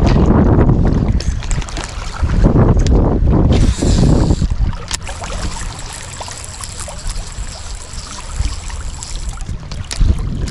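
Wind buffeting the microphone on a small boat: heavy, gusty rumbling for the first four seconds or so, then easing to a steadier hiss, with a faint high whine in the middle and a sharp click about five seconds in.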